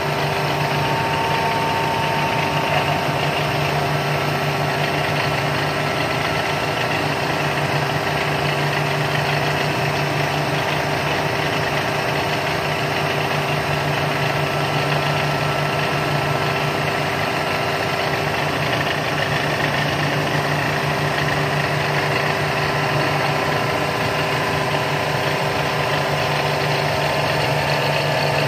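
CNC milling machine cutting an aluminium block with an end mill under flood coolant: steady machine noise of spindle and cut, with a constant hum and no pauses.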